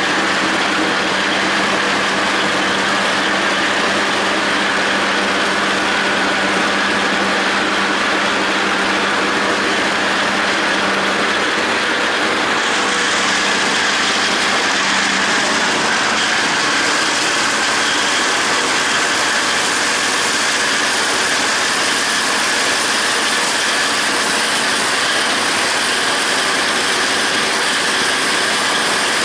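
John Deere 5320 tractor's three-cylinder diesel running steadily under load while pulling a John Deere 270 disc mower, with the mower's spinning discs cutting standing grass.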